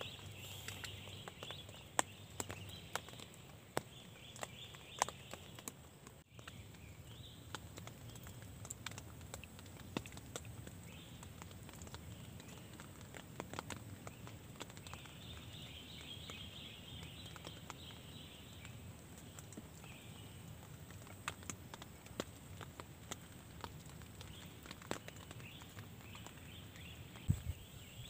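Scattered water drops tapping singly and irregularly on a tent's fabric over quiet forest ambience, with patches of faint high chirping now and then. A louder low rustle starts near the end.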